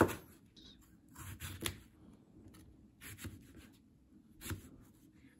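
Kitchen knife cutting through eggplant and tapping down on a plastic cutting board: several short cuts in small groups with pauses between, the first one the loudest.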